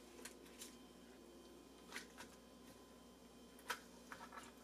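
Near silence with faint rustling and soft crinkles of boiled cabbage leaves being pressed into the bottom of a heavy enamelled cast-iron pot; a few slightly louder crinkles come about two seconds in and again near the end.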